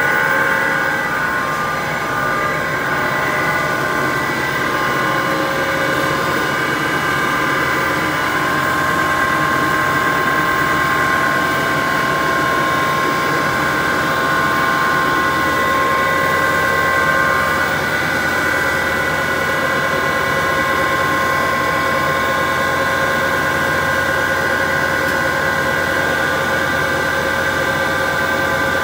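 HDPE pipe extrusion line running: a constant machine hum with several steady high tones on top, from the extruder and its drive.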